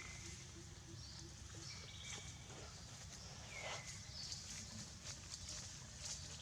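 Faint outdoor animal calls: a few short, high whistles that slide down in pitch and level off, roughly one every couple of seconds, over a low steady hum and scattered light ticks.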